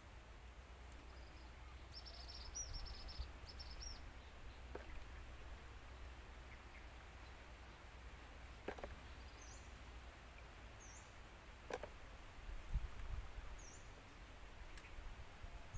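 Quiet pondside ambience: a steady high-pitched insect drone, with a few short bird chirps and several brief falling chirp notes, plus a few faint clicks and a low rumble.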